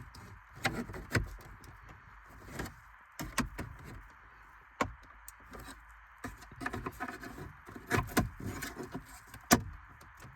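Plastic dashboard trim clips clicking and knocking as a trim tool pries up a trim panel, a dozen or so irregular sharp clicks over a faint steady hiss.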